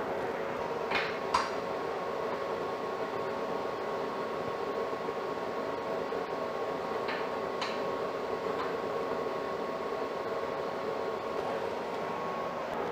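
Steady mechanical hum of workshop equipment with faint held tones, broken by a few light metallic clicks as a steel square is set against a tack-welded steel tube corner.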